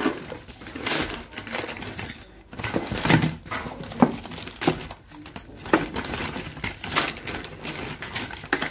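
Plastic shopping bag rustling as groceries are emptied out of it, with tins, pasta packets and cardboard boxes knocking and clattering onto the floor in irregular bursts.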